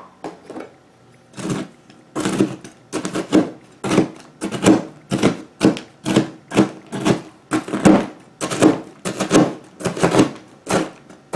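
Chef's knife chopping pre-chopped onion that was frozen, striking a thin plastic cutting mat in a steady rapid series of knocks, about two to three a second, from a second or so in.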